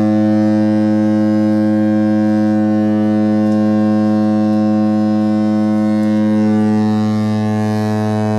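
The horn of the cruise ship Mein Schiff 4 sounding one long, deep blast held steady on a single note.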